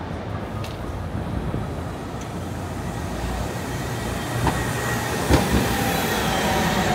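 A train running on rails, growing slowly louder, with a thin wheel squeal coming in about halfway and a couple of sharp clacks from the wheels.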